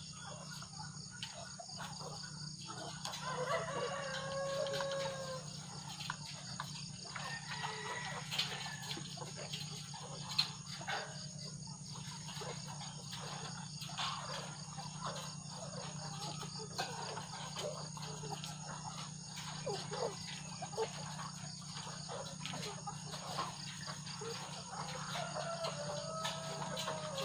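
A shed full of caged white ready-to-lay hens clucking, with a few drawn-out pitched calls, one a few seconds in, one about a third of the way through and one near the end, amid many short clucks and clicks.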